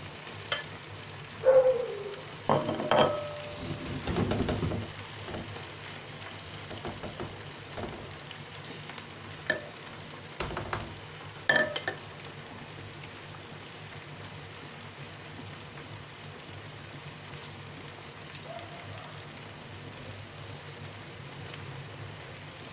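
Stew sauce sizzling in a pot, with a spoon stirring and knocking against the pot several times in the first twelve seconds, then steady sizzling.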